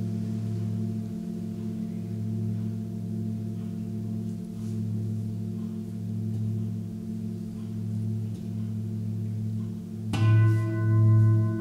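Seven-metal Tibetan singing bowls ringing in a deep sustained hum with several higher tones, wavering in level. About ten seconds in, another bowl is struck, adding a bright ring with higher overtones, and the hum swells and fades about once a second.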